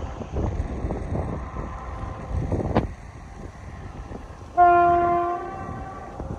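Wind buffeting the microphone, then about four and a half seconds in a single train horn blast: one steady note held for about a second that trails off.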